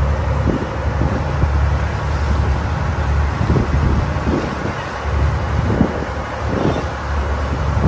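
Tour boat's engine running steadily under gusts of wind buffeting the microphone, which come and go in uneven low rumbles.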